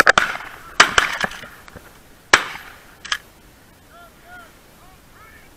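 Shotgun shots fired at a flushed pheasant: a quick volley of sharp reports in the first second and a half, another loud shot about two seconds in, and a fainter one shortly after.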